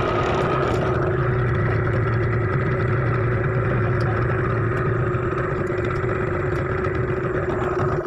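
Small tiller-steered outboard motor running at a steady speed, propelling the boat. The sound stops abruptly at the very end.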